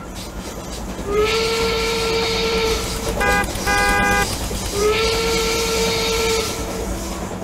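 Steam-train whistle sound from the toy train: a long whistle blast with steam hissing, two short toots, then a second long blast with hiss, over a low steady running rumble.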